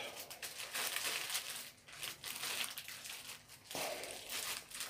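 Faint, irregular rustling and crackling handling noise: a hand squeezing a spring hand grip strengthener close to the microphone.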